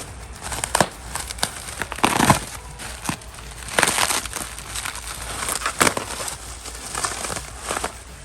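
Packaging being handled and unwrapped: irregular crinkling and rustling with scattered sharp clicks and light knocks.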